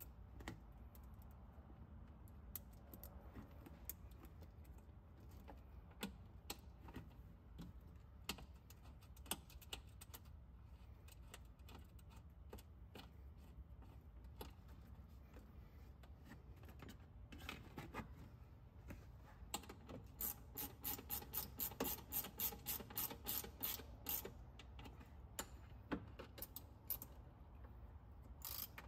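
Faint small metallic clicks and taps as a nut and ring terminals are handled and threaded onto a lithium golf-cart battery's terminal post. About twenty seconds in comes a quick, even run of clicks from a ratcheting wrench tightening the terminal nut.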